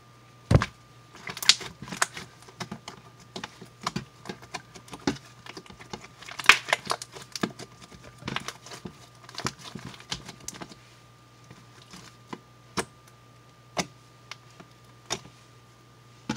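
Pink bubble-gum slime with lotion mixed in being kneaded and squeezed by hand, giving quick sticky clicks and pops. There is a strong thump about half a second in, many rapid clicks for the next ten seconds, then sparser single pops.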